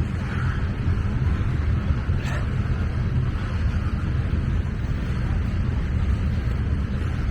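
CSX freight train rolling past, a steady low rumble of wheels on rail, with a brief clank about two seconds in.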